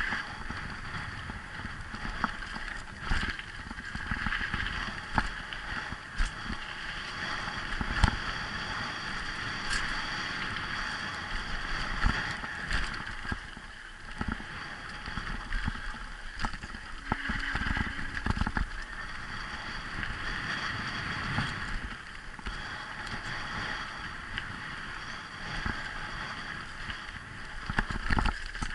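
Mountain bike descending a dirt singletrack, heard from a camera mounted on the rider or bike: a steady rush of tyre noise and wind, with frequent sharp knocks and rattles of the bike over bumps in the trail.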